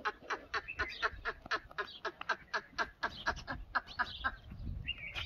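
Birds calling in a fast run of short, repeated chirps, about seven or eight a second.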